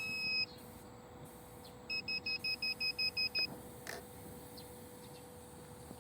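Electronic beeper of a remote-control lawn mower's controls: one long beep, then about a second and a half later a quick run of about nine short beeps on the same high pitch, over a faint steady hum.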